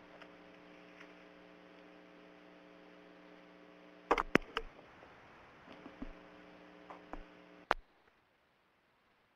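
Steady electrical hum on the audio line, with several sharp clicks. The loudest clicks come in a quick cluster about four seconds in and once more near the end, and then the hum cuts out.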